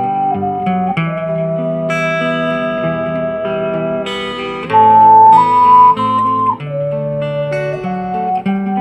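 Ocarina playing a slow melody in long held notes over an acoustic guitar accompaniment.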